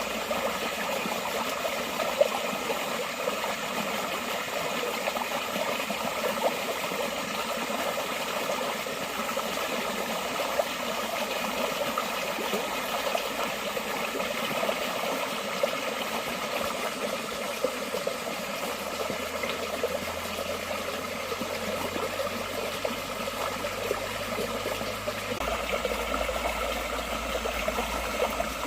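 Forest stream flowing steadily, water splashing and trickling over stones. A faint low rumble joins in during the last few seconds.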